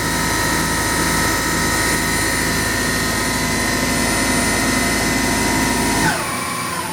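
Omniturn GT-75 CNC lathe's 5C spindle running at full speed with a steady high whine and hum. About six seconds in, the whine falls steeply in pitch and the low hum drops out as the spindle slows.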